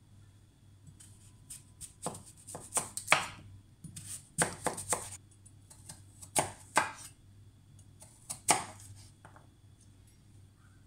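Kitchen knife chopping a peeled raw sweet potato into cubes on a wooden cutting board: several bursts of quick, sharp knocks as the blade cuts through and strikes the board.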